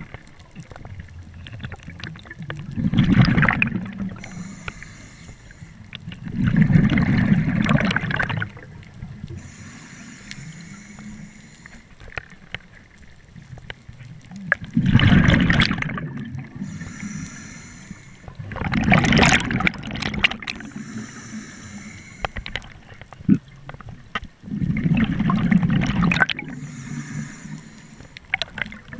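A scuba diver breathing out through a regulator underwater, with exhaled bubbles bubbling past in five bursts of one to two seconds each, a few seconds apart. Between the bursts there is a quieter hiss.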